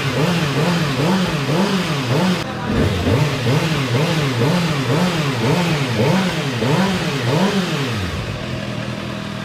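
2026 Kawasaki ZX-6R's 636 cc inline-four engine revved in quick repeated throttle blips, about two a second, then dropping back to a steady idle near the end. The engine is being revved to heat it up until the radiator cooling fan switches on.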